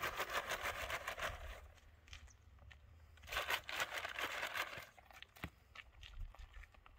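Plastic nylon bag crinkled and rustled by hand in two spells, one at the start and another about three and a half seconds in, with faint crackles between: the bag noise used to get a bag-shy horse used to it.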